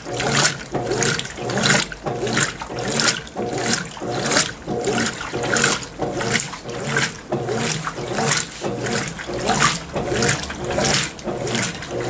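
Consul 16 kg (CWL16AB) top-load washing machine agitating a load of white cotton clothes and towels in water during its wash stage: a rhythmic swish-and-slosh, one surge about every two-thirds of a second, as the agitator drives the load back and forth.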